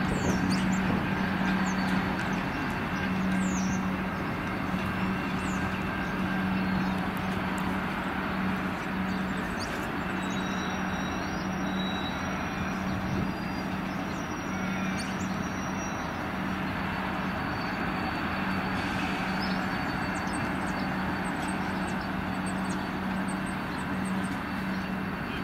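Diesel locomotive running steadily at low power as it slowly draws a passenger carriage set during shunting, a steady hum with a slight pulse.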